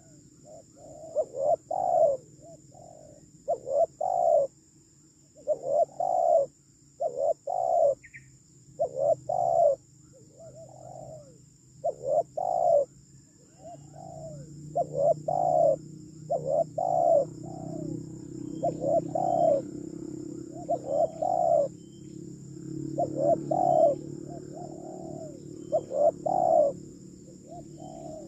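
Spotted doves cooing over and over in short phrases of two or three coos, a second or two apart, the call used to lure wild doves. A steady high insect hum runs underneath, and a low hum builds up about halfway through.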